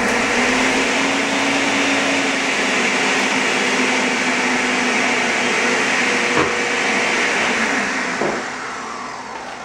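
Countertop blender grinding rolled oats into oat flour: the motor spins up at the start, runs loud and steady, and winds down near the end.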